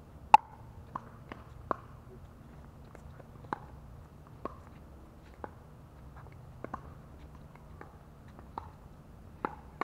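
Pickleball rally: paddles striking the hard plastic ball with sharp, short pops, about a dozen at uneven intervals, the loudest just after the start.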